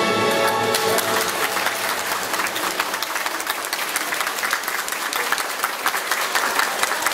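The last chord of a recorded orchestral polonaise ends about a second in, then a large seated audience applauds, many hands clapping steadily.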